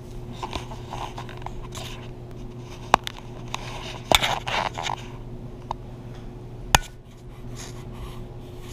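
Handling noise as the camera is moved about: rustling scrapes and a few sharp knocks, three of them standing out, over a steady low hum.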